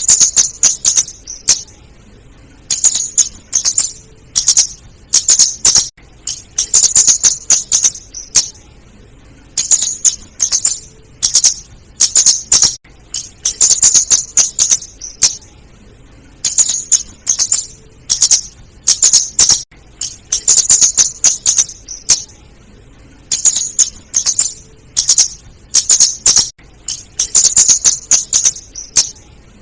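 Female flowerpecker giving rapid, high, sharp ticking chip calls in short bursts about every one to two seconds. This is a lure call used to draw other flowerpeckers in.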